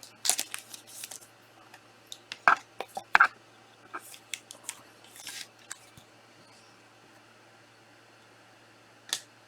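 Trading cards and their plastic holders being handled: a run of short clicks and swishes that thins out about halfway through, then one more click near the end.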